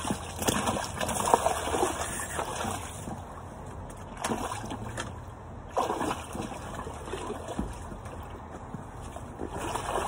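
Water splashing in several uneven bursts at the river's edge as a hooked salmon is landed by hand.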